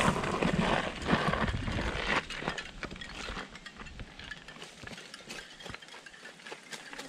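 Crunching and scuffing on a dry gravel dirt trail: footsteps and a small child's bike being pushed along, with light clicks and rattles. Loudest in the first two seconds, then fainter scattered ticks.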